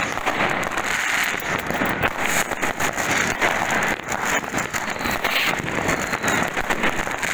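Many fireworks going off at once close by: a dense, unbroken stream of firecracker bangs and crackling mixed with rockets bursting.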